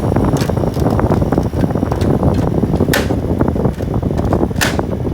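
Running box fan's airflow buffeting the microphone: a loud, rough rumble of wind noise that starts suddenly, with two sharp clicks a second and a half apart near the end.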